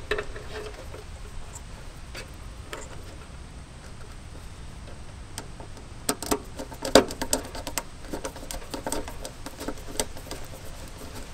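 Small metallic clicks and scrapes of a screwdriver tightening a flathead terminal screw on an air-conditioner contactor, with a stripped wire being worked in under it. The clicks are sparse at first and cluster in the second half, the sharpest about seven seconds in.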